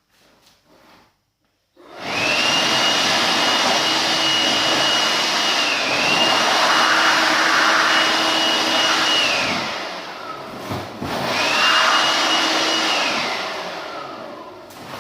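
Reciprocating saw with a tungsten-carbide-tipped blade cutting into brickwork. The motor starts about two seconds in and runs at full speed with a high, steady whine for about seven seconds, then winds down, runs again briefly and winds down once more near the end.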